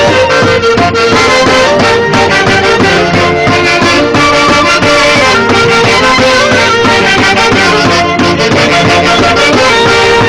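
Loud, continuous Andean traditional music in the Santiago style of Huancayo, played by a band led by wind instruments over a steady beat.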